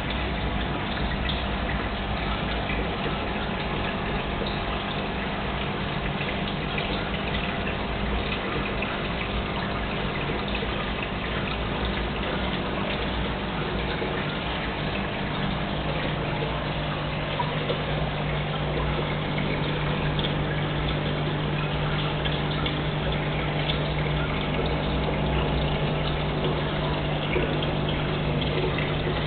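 Aquarium aeration and pump running: steady bubbling, splashing water with a low electrical hum under it. Another hum comes in about halfway through.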